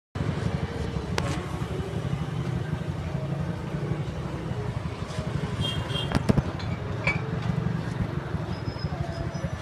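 Busy market background noise: a steady low rumble with a few sharp clicks, about a second in and again around six seconds, and some faint high squeaks.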